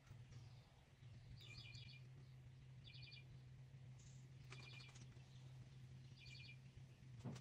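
Near silence: a faint steady low hum, with a short high chirping trill that repeats about every one and a half seconds, and a single click near the end.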